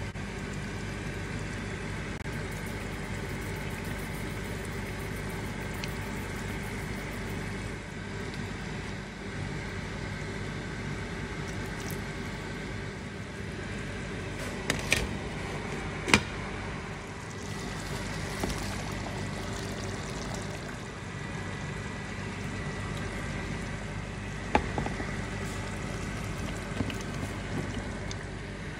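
Beef keema curry simmering in a steel pot on the stove, over a steady hum. A few sharp knocks of a utensil against the pot come about fifteen and sixteen seconds in and again near twenty-five seconds.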